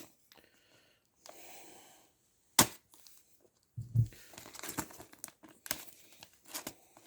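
Handling of a lock-pick expansion kit and its case: one sharp click about two and a half seconds in, then a run of small clicks and rustling as the tools are handled.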